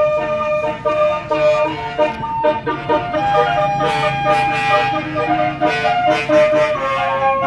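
Tour bus basuri multi-tone air horn playing a melody of short stepping notes, with one long held note about three seconds in.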